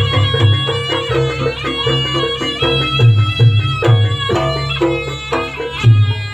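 Traditional East Javanese jaranan music: a reed shawm plays a wavering melody over steady drum strokes.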